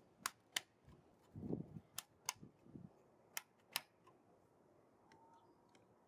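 DDR4 memory modules being pressed into motherboard DIMM slots, the slot latches snapping shut with sharp clicks that come in close pairs, six in all over the first four seconds, with a soft knock among them.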